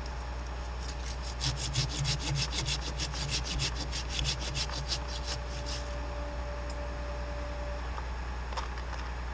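Hand pruning saw drawn quickly back and forth through the cut in a limb for about five seconds, working the kerf to make sure the piece is cut free.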